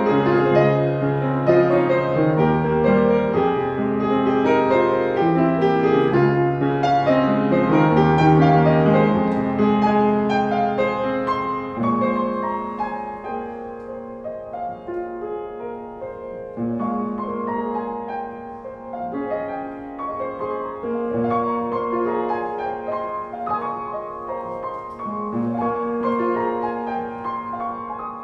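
Solo upright piano played gently and slowly: chords over low bass notes for the first twelve seconds or so, then quieter playing in the middle register with the bass mostly dropped out.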